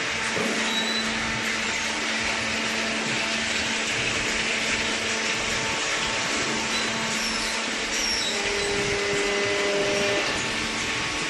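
Hydraulic cardboard baler running: a steady machine whir with a constant low hum. A higher tone joins about eight and a half seconds in and drops out about a second and a half later.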